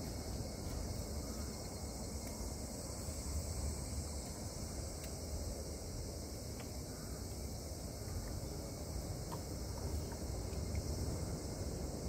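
Insects chirring steadily in a continuous high hiss, over a low rumble.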